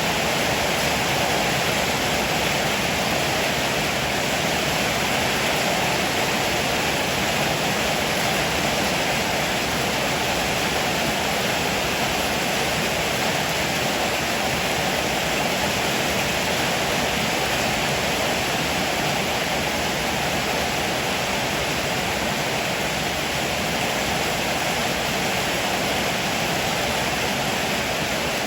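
Heavy rain pouring down steadily, a dense, even hiss with no thunder.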